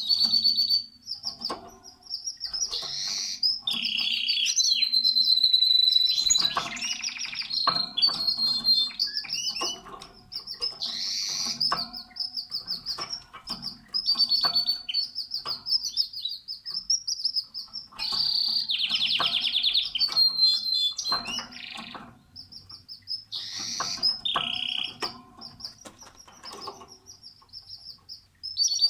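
Domestic canary singing a long, varied song of rapid rolling trills and high chirps, with a whistled note held for a second or two a few seconds in.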